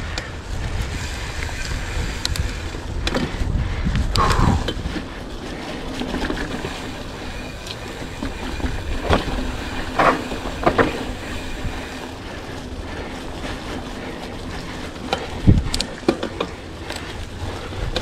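Wind rumbling on the microphone while riding, with scattered clicks and knocks from a mountain bike rolling over a dirt trail; one sharper knock comes near the end.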